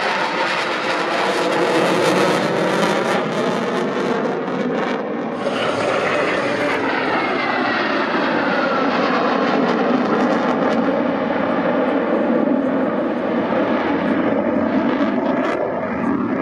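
Jet noise from a Eurofighter Typhoon's twin EJ200 turbofans during a display pass: a loud, continuous rushing with slow falling sweeps in pitch as the jet moves past.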